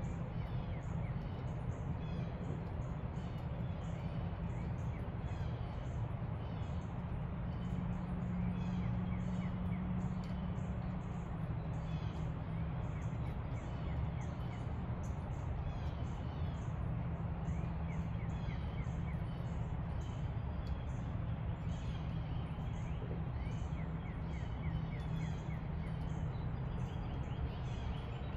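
Wild birds chirping and calling in a dawn chorus: many short chirps and several quick trilled runs of notes, over a steady low rumble.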